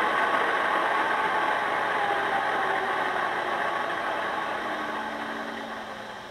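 HO scale model diesel locomotive running, a steady mechanical noise that fades gradually toward the end as power is reduced.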